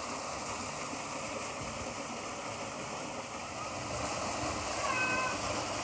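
Steady rushing of a creek waterfall, a continuous even wash of water, with a short high call near the end.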